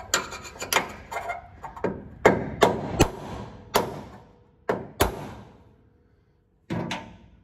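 Hammer striking the end of a screwdriver used as a drift against a steel part of a car's underside tubing: a dozen or so sharp metal taps, about three a second, that thin out and stop after about five seconds. The part is being tapped in a little at a time to nudge it into position.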